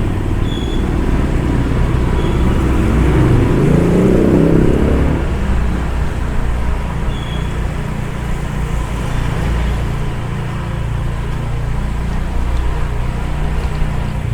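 Car driving slowly in traffic, heard from inside the cabin: a steady engine and road rumble that swells louder for a couple of seconds about three seconds in.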